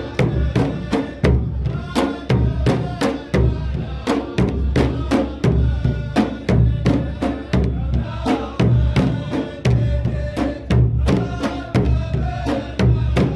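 Saudi 'ardah folk performance: drums beaten in a steady, driving rhythm while a group of men chant in unison.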